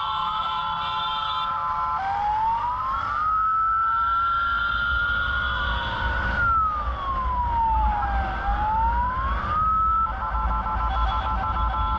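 Electronic emergency-vehicle siren on a rescue vehicle running to a call: a steady multi-note tone for about two seconds, then a slow wail rising and falling, then from about ten seconds in a rapid pulsing tone. A low engine and road rumble runs underneath.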